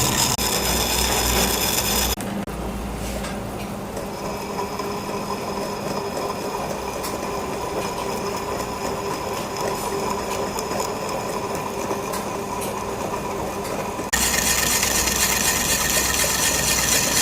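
Lathe turning a wooden log with a cutting tool working the wood: a steady machine running noise with the sound of the tool on the wood. The sound drops suddenly to a quieter level about two seconds in and jumps back up just as suddenly about fourteen seconds in.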